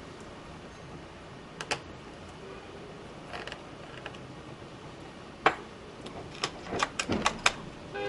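Scattered small clicks and taps of a screwdriver on the plastic and metal parts of a laptop as its internal speaker is worked loose. There are a few light clicks, one sharper click a little past the middle, and a quick run of clicks near the end.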